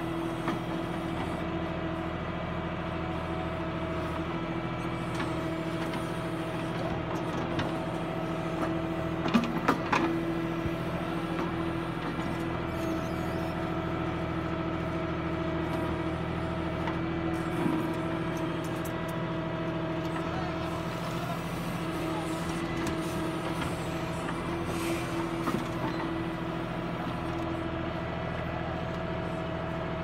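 Bull V2 backhoe loader's diesel engine running steadily as the backhoe digs soil, with a whine that comes and goes over the engine hum. A few sharp knocks sound about a third of the way in.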